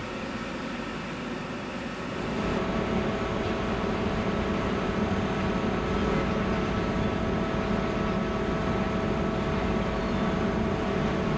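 Steady machinery hum of a ship's engines and ventilation, heard on the ferry's deck, with a few constant tones over a low rumble. It grows louder and fuller about two seconds in.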